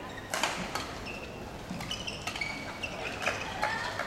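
A badminton rally: sharp racket strikes on the shuttlecock, several in quick succession, mixed with short high squeaks of shoes on the court.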